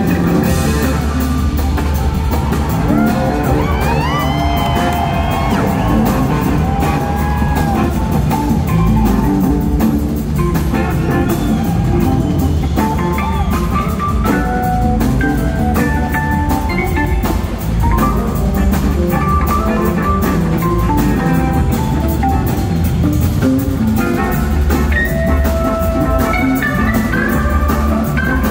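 Live rock band playing an instrumental jam: an electric guitar slides up and down in pitch over a drum kit and a heavy low end.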